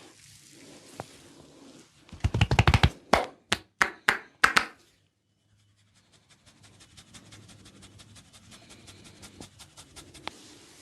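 Barber's hands working a head massage: a quick run of loud, sharp slaps and cracks about two seconds in, a brief pause, then a long stretch of faint, rapid, even clicking.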